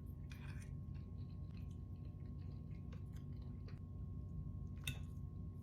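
A person chewing a mouthful of soft pasta and beans: faint, scattered wet mouth sounds and small clicks over a low steady hum.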